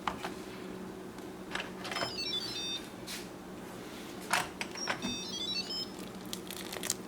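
A short electronic tune of quick high beeps that step down and back up in pitch, played twice, over a steady low hum. Scattered clicks and knocks of handling are mixed in.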